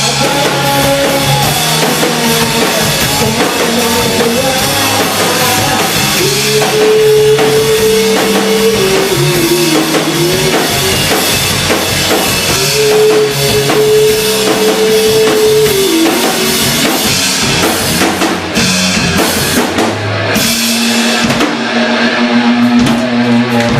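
Rock music: a band with a busy drum kit and guitar, a melodic line holding long, steady notes that slide down at their ends, and a low note held near the end.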